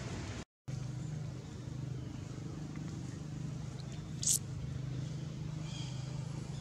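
Steady low hum of an engine running, with a brief sharp high-pitched squeak about four seconds in. The sound cuts out for half a second near the start.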